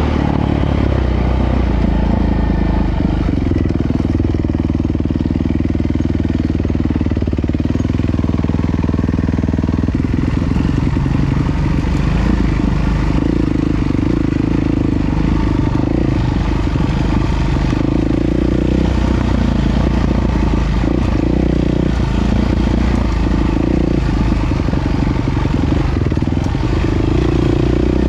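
Single-cylinder 450 four-stroke dirt bike engine running under way, heard from the rider's position, its pitch rising and falling as the throttle is opened and closed.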